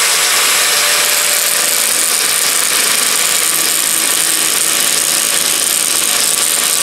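Angle grinder running steadily, its abrasive disc grinding rust and surface pitting off a steel axe head.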